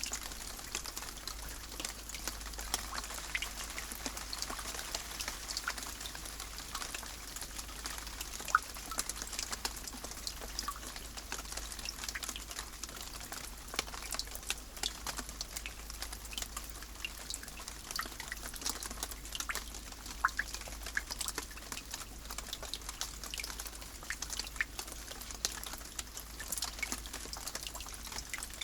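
Rain falling steadily: a constant hiss with many separate drops ticking close by at irregular moments, one sharper drop hit about eight seconds in.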